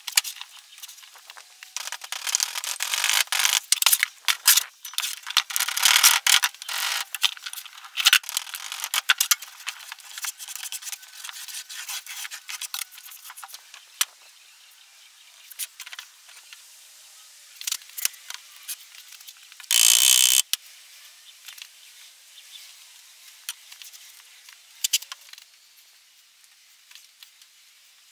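Foundry sand being worked in a wooden molding flask: gritty scraping and rustling of sand with scattered knocks and clicks, busiest in the first ten seconds. A brief loud rasp about twenty seconds in, then only sparse clicks.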